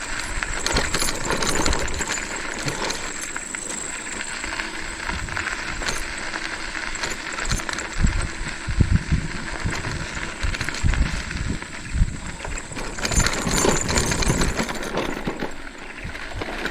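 Metal rattling and clinking with irregular knocks and thumps, typical of an e-bike jolting over a rough dirt track. The heavier thumps come in the second half.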